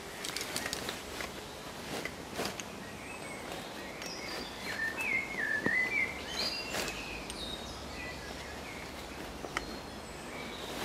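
Climbing gear being handled in a tree: scattered clicks and rustles of straps, bag and metal hardware. A small bird sings a short wavering phrase about halfway through.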